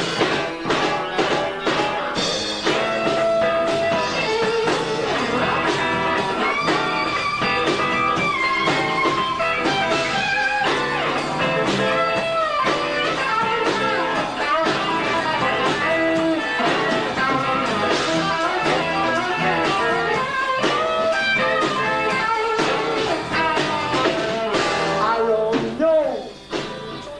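Live rock band playing an instrumental break between verses: a lead guitar solo with held, bending notes over bass and drums, the band dropping back briefly near the end.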